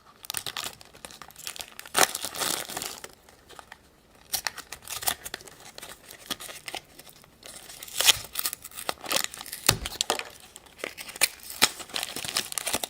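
Plastic toy packaging crinkling and being torn open by hand, in irregular crackling bursts, busiest near the start and in the last few seconds.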